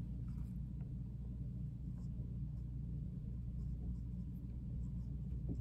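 Faint brushing of a small paintbrush on fabric, blending coloured pencil into the cloth, with a few soft ticks over a steady low hum.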